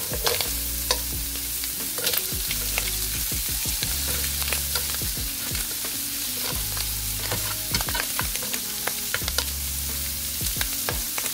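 Shrimp sizzling as they fry golden brown in a pan, with metal tongs clicking against the pan again and again as the shrimp are turned.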